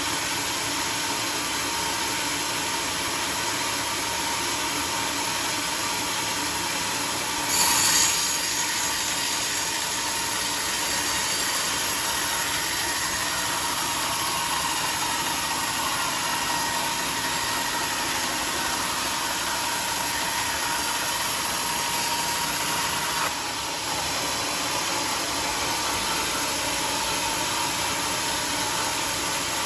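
Homemade sawmill running, a steady machine noise with a constant whine. There is a short louder burst about eight seconds in and a brief dip near twenty-four seconds.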